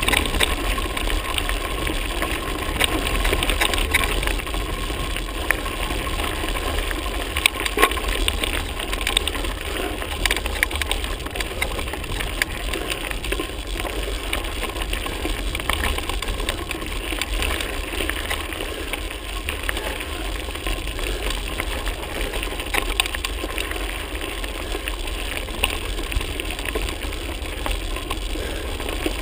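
Mountain bike ridden over a stony gravel track, heard from a camera on the bike: tyres crunching on the stones, with many small clicks and rattles from the bike over the bumps and a steady low wind rumble on the microphone.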